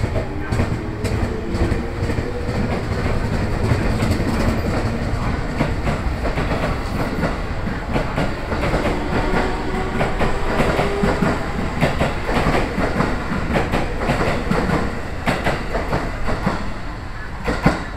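A coupled JR West 221 series and 223 series electric train pulling out of a station and passing close by: the motors give a whine that rises in pitch as the train gathers speed, over the wheels clacking steadily across rail joints, with one loudest clack near the end.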